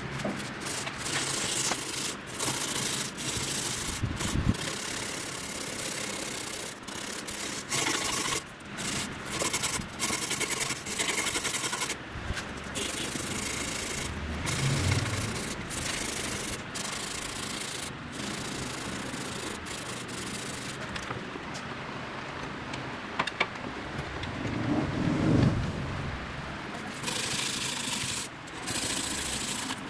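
Sandpaper rubbed back and forth by hand over the hardened glue on a repaired racket frame: a run of rasping sanding strokes with many brief pauses.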